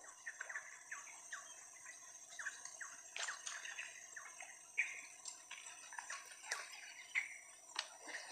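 Quiet outdoor ambience: a steady high-pitched hum with many short chirps and ticks scattered irregularly through it.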